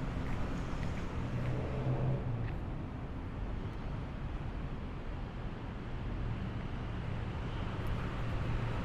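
Street traffic: vehicle engines running and passing, a steady low rumble that swells briefly about two seconds in and again near the end.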